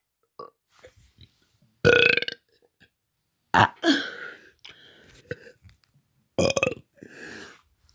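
A man burping on purpose, one burp after another: three loud, short burps, with fainter sounds between them.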